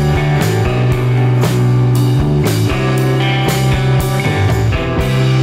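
Background rock music with drums and guitar over a steady beat.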